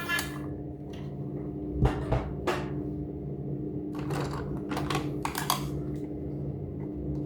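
Scattered light clicks and knocks of toys and their packaging being handled during an unboxing, about ten in all, over a steady low hum.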